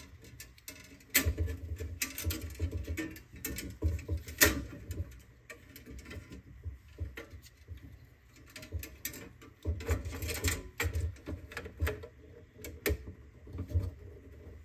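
Handling noise from fitting plastic lamp-holder sockets and their wires into a sheet-metal fluorescent fixture channel. Irregular clicks, taps and light rattles come throughout, with a few dull thumps where the metal housing is knocked against the wooden bench.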